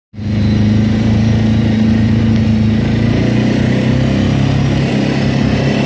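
ATV (quad) engine running steadily while riding along a dirt track, its note shifting slightly about halfway through.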